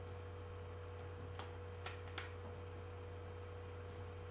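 Steady low electrical hum with a thin higher tone over it, and three faint clicks between about one and a half and two and a half seconds in, from a CD and its plastic case being handled.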